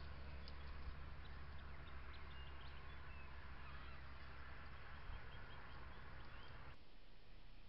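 Scattered short, high bird chirps over the steady hiss and low hum of a trail camera's microphone, all faint; the hiss drops away suddenly near the end.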